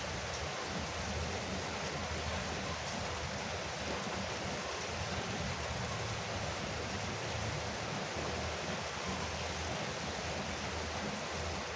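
Rain falling steadily on a veranda roof, an even, unbroken hiss.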